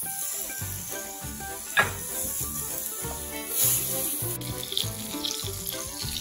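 Meat sizzling on a hot electric plancha griddle, a steady hiss, under background music with a steady beat. A single sharp click comes a little under two seconds in.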